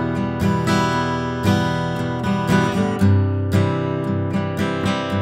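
1958 Martin D-28 dreadnought acoustic guitar with Brazilian rosewood back and sides, played unamplified with chords strummed in a steady rhythm, several strokes a second, each ringing into the next.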